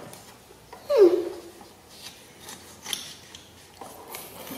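Knife slicing through the peel and flesh of a green-skinned orange, heard as faint cuts and a few light clicks. About a second in, a short voice sound falls in pitch.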